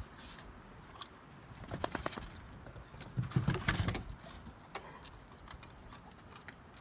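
Two dogs play-wrestling: scuffling paws and clicking claws in two short bursts, about two seconds in and again about three and a half seconds in.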